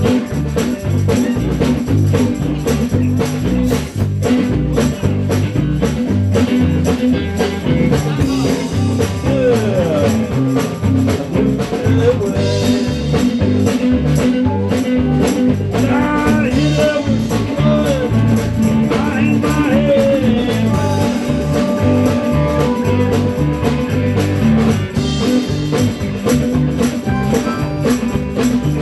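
Live blues-rock band playing an instrumental passage: electric guitar lead with bent notes over bass and a steady drum kit beat.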